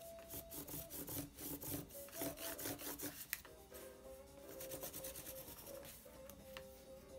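Oil pastel scribbled in quick, rough strokes across painted corrugated cardboard: a dense run of scratchy rubs for the first three seconds or so, then only a few single strokes.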